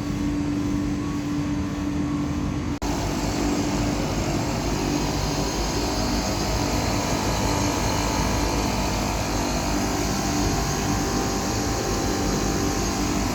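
A 5-ton ducted air conditioner's condensing unit running steadily, a steady hum with its fan blowing, broken off briefly about three seconds in.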